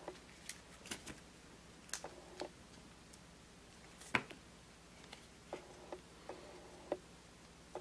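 Baseball trading cards being flipped through by hand and set down on a wooden table: faint, irregular light clicks and taps, the loudest about four seconds in.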